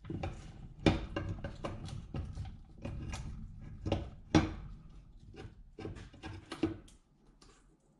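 Hand tools and metal parts clinking and knocking while an Atlas transfer case is worked apart by hand: a run of irregular clicks and taps, the two loudest about a second in and halfway through, dying away near the end.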